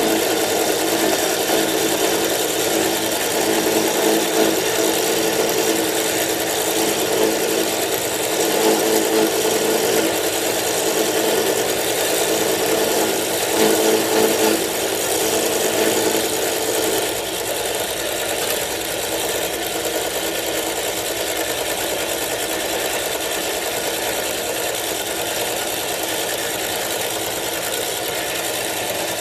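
Milling machine running while it cuts the lock relief in a frame lock knife's handle. The steady motor hum carries extra rough cutting noise until about 17 seconds in, when it eases off and leaves the even hum of the machine.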